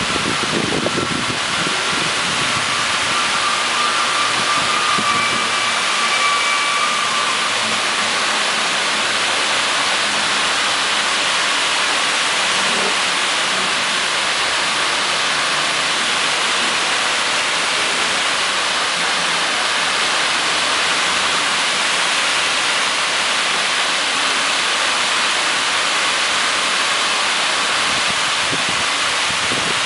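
Water pouring down a curved, stepped water-wall fountain, making a steady rushing splash with a hiss-like high-pitched sound.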